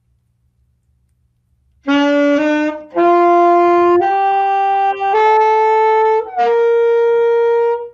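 Alto saxophone playing a slow rising scale of six notes, the exercise line B, C, D, E, F up to G, with the final G held longest. The notes sound steady, with no squeak.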